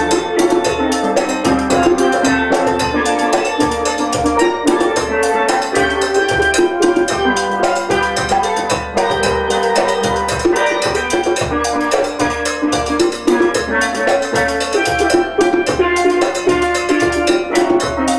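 A steel pan band playing a tune together: many pans struck with mallets in quick, even notes over a regular low bass pulse.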